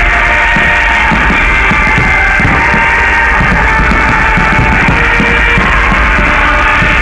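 Loud rock music with a pounding drum beat, played continuously.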